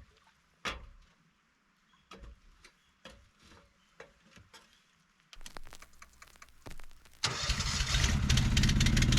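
Honda HSM1380i hybrid snowblower's engine starting: after scattered steps and clicks, the engine turns over about five seconds in, catches about two seconds later and runs steadily and loudly.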